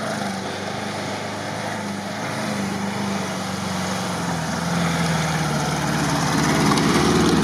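ZAZ-968M's air-cooled V4 engine running under load as the car climbs a muddy slope on tyre chains, a steady engine note growing gradually louder as it comes closer.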